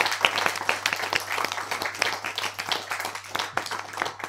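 Applause: a crowd of hands clapping densely, thinning out toward the end, over a low steady hum.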